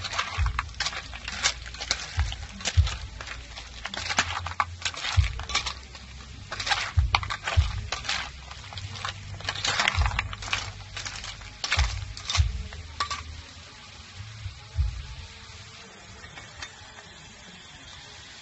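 Snail shells clattering and scraping against a frying pan as they are stirred with a spoon: quick, irregular clicks and knocks that thin out after about 13 seconds.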